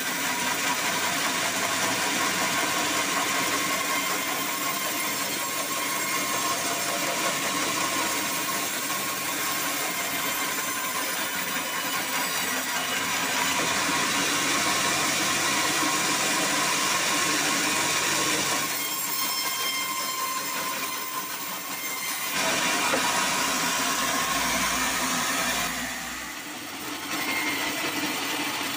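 A horizontal band sawmill running and sawing through a black acacia log: the steady, dense noise of the band blade and the mill's motor. It drops briefly twice, once about two-thirds of the way through and again near the end.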